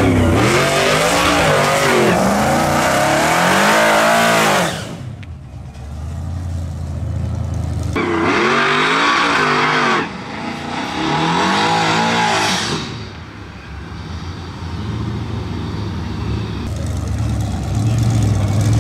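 Modified street-race pickup truck engines revved hard up and down again and again, in two spells of about five seconds each. They then settle to a low, steady idle.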